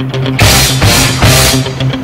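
Loud heavy rock background music with a driving beat: bass, electric guitar and drums.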